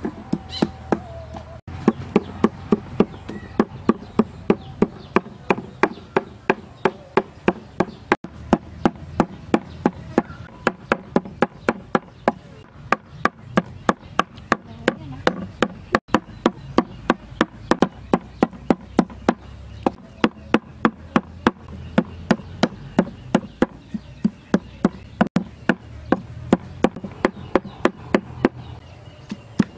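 A cleaver chopping raw pork on a round wooden chopping block, mincing it with steady, even blows about three a second.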